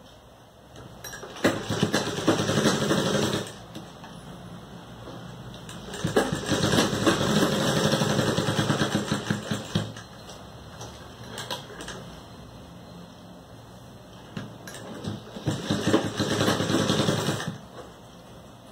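Sewing machine stitching through cotton fabric in three runs: about two seconds starting just over a second in, about four seconds from around six seconds in, and a shorter run near the end, with short pauses between.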